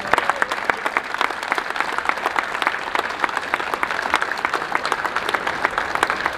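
Applause from a crowd: many hands clapping in a steady, dense patter.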